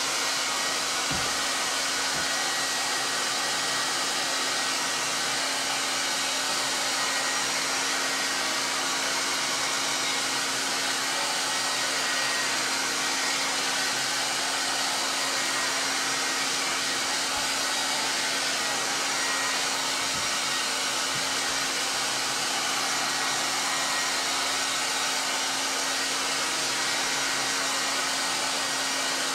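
Handheld hair dryer running steadily: a constant rush of blown air with a steady low hum.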